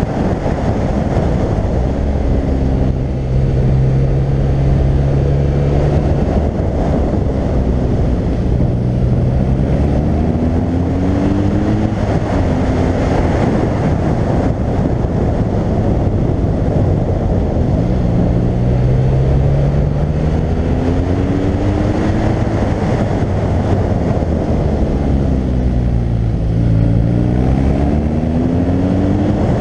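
BMW R1200GS flat-twin boxer engine pulling through the gears on a ride. Its pitch climbs with each acceleration and drops as it backs off, several times over, under a steady rush of wind noise on a helmet-mounted microphone.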